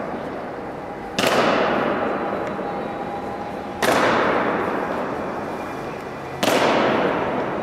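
Honour guard's slow ceremonial goose-step: boots striking a stone floor in unison, three strikes about two and a half seconds apart, each echoing long in the round stone hall.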